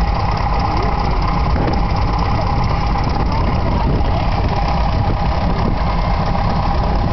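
Vintage tractor engines running with a steady rumble, with no rise or fall in level.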